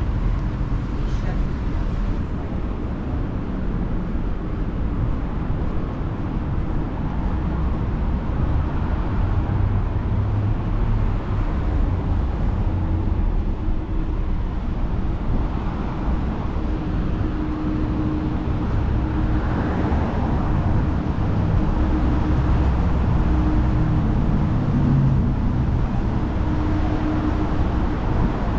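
City street ambience: road traffic running steadily with cars passing, and people's voices mixed in. A steady hum sits under it through much of the second half.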